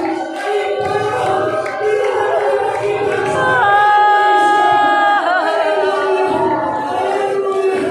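A choir singing together, with one high note held steady for about a second and a half near the middle.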